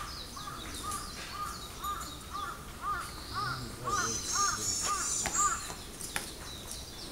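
A crow cawing in a series of repeated calls that come faster and louder for a few seconds, with fainter high bird chirps behind.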